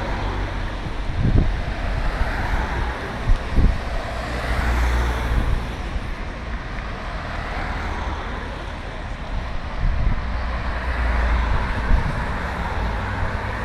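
Race team support cars driving past one after another, engine and tyre noise swelling as each goes by, with wind rumbling on the microphone.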